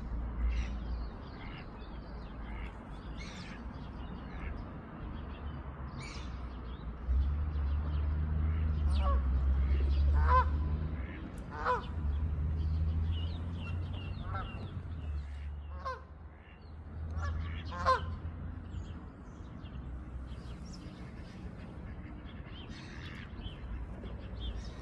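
Geese honking, about six short calls spread through the middle, over constant high chirping of small birds and a low rumble.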